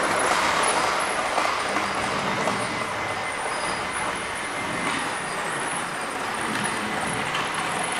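OO gauge model trains running on track laid on the floor: a steady whirring and rattling of motors and wheels on the rails, a little louder at the start.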